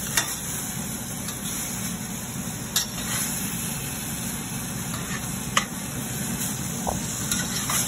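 Chicken and broccoli sizzling steadily in teriyaki sauce in a stainless steel sauté pan, stirred with a metal slotted spatula that gives a few sharp clicks against the pan.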